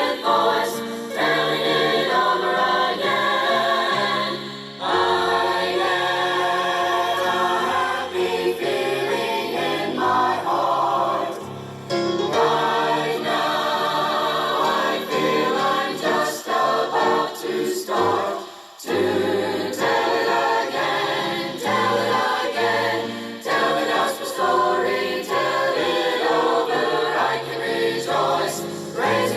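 A choir singing a gospel song in several-part harmony, in phrases with short breaks between them about 5, 12 and 18 seconds in.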